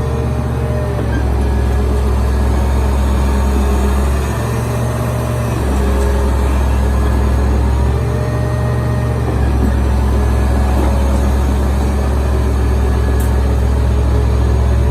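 Caterpillar D7G2 bulldozer's diesel engine running steadily with a deep note that shifts a little every few seconds.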